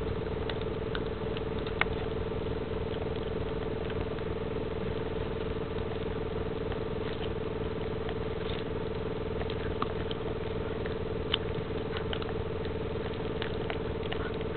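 Golden Retriever puppy gnawing on rawhide: irregular small clicks and scrapes of teeth on the hide, a few sharper ones, over a steady hum.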